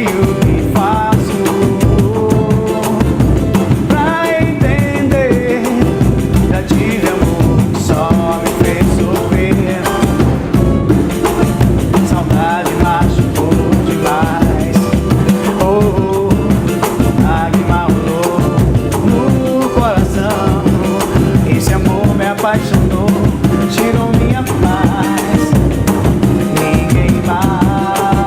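Pagode band playing with drums and percussion keeping a steady samba beat under a wavering melody line. Steady held notes come in near the end.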